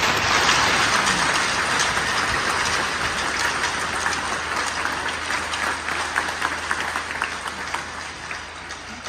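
Arena crowd applauding, a dense patter of many hands clapping that gradually dies away near the end.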